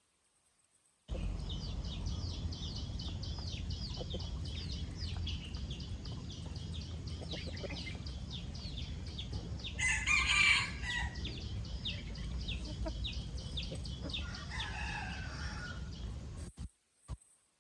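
A brood of chicks peeping constantly in rapid, short, high falling notes over a low steady rumble. There is a louder adult chicken call about nine seconds in and a fainter one near the end, and the sound cuts off abruptly.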